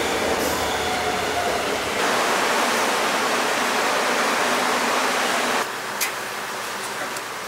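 Hot oil bubbling and sizzling in a commercial deep fryer as twisted dough sticks fry, a steady hiss. It drops in level about five and a half seconds in, and a short click follows.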